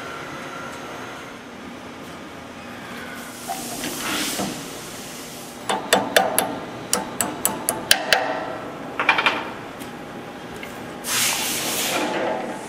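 Hammer tapping the hub of a handwheel onto its shaft on an agitator gearbox: a run of about eight sharp metal taps, then a quicker cluster. Near the end a rushing whir as the handwheel is spun by hand and the gear drive turns.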